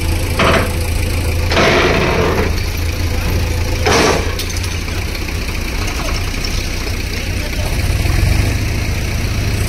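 Diesel engines of a tractor and a backhoe loader running steadily, with the backhoe's front bucket pushing a stuck tractor trolley. Three short, loud noisy bursts break in during the first half.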